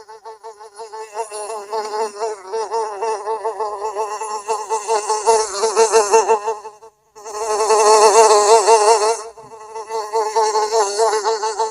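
Housefly buzzing in flight, a wavering whine that swells and fades as it moves close to and away from the microphone. It cuts out briefly about seven seconds in, then returns at its loudest.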